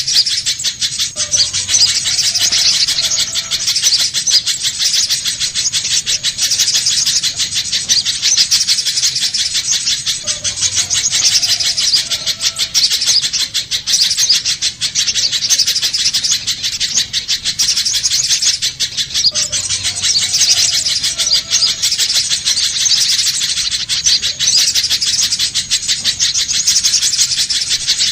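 Spiderhunter calling: a fast, unbroken stream of high, sharp chattering notes, used as a bird-trapping lure call. The same stretch of calling comes round about every nine seconds, as a looped recording does.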